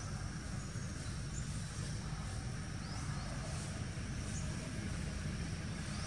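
Steady low outdoor rumble, with faint short rising chirps every second or so.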